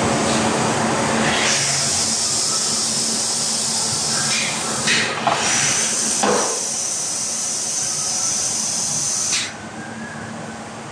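Plastic injection moulding machine running: a steady low hum under a loud, even hiss that cuts off suddenly near the end. A few short knocks and squeaks come midway.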